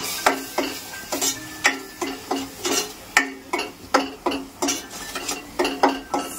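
A steel spoon stirring and scraping grated coconut roasting in oil in a stainless steel pot. Rhythmic metal scrapes and clinks come about three a second, and the pot rings briefly after each.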